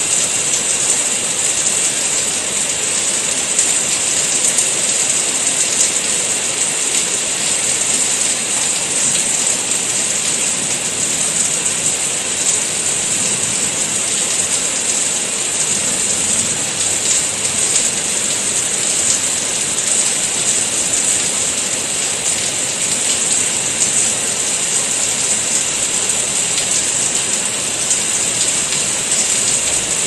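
Heavy rain falling steadily: a dense, even hiss of countless drops with fine pattering, unchanging throughout.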